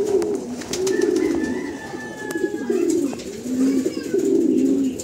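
Racing pigeon cocks cooing, with many low, wavering coos overlapping one after another without a break.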